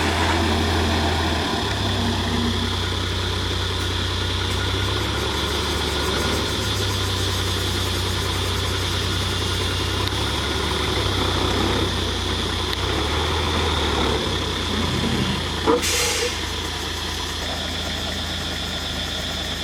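Heavy diesel engine running steadily at low revs, its pitch shifting slightly now and then, with a brief sharp clank and hiss about sixteen seconds in.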